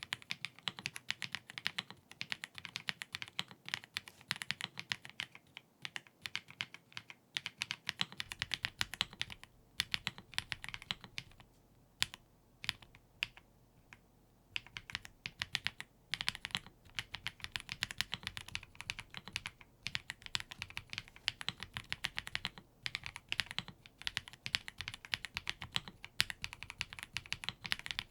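Fast, continuous typing on a Keychron C3 Pro tenkeyless mechanical keyboard, a rapid run of key clicks with a couple of brief pauses about halfway through.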